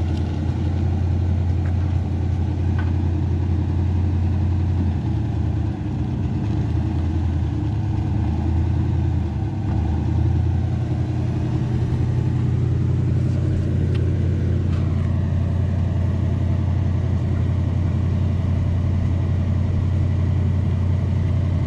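Motor vehicle engine running steadily with a strong low drone, which shifts in pitch about five seconds in and again about ten seconds in.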